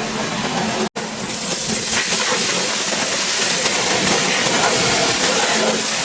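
Pressure washer spray hissing steadily. It cuts out for an instant about a second in, then comes back a little louder and holds steady.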